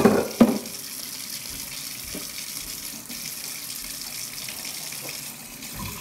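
Kitchen faucet running steadily into a sink as dishes are rinsed by hand under it, with two sharp knocks of dishware right at the start.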